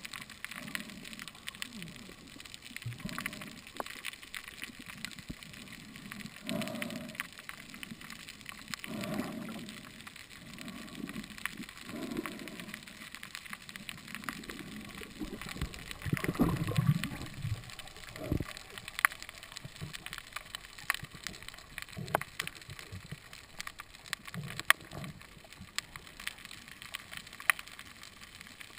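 Underwater sound picked up through a camera housing: scattered sharp clicks and crackles over a muffled wash of moving water, with low muffled swells every few seconds, the loudest about halfway through.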